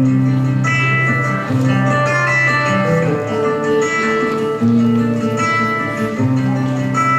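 Instrumental music, with low held bass notes that change every second or two.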